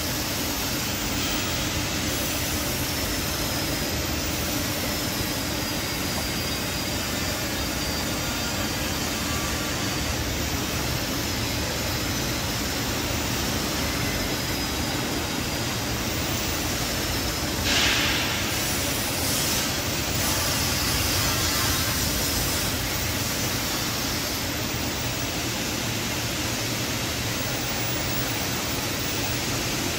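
Steady rush of churning water in an industrial chicken-meat washing machine's tank, with its motors and belt conveyor running. A brief louder hiss comes a little past halfway.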